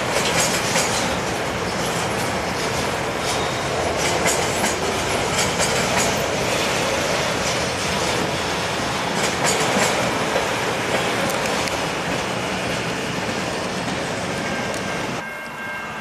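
Freight train of empty center-beam flatcars rolling across a steel bridge: steady wheel and rail noise with repeated sharp clicks. The noise drops away about 15 seconds in as the last car clears.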